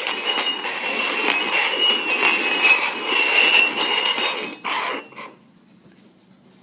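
Containers being slid and shuffled across a hard surface: a continuous scraping noise that stops after about four and a half seconds, with one short burst of the same sound just after.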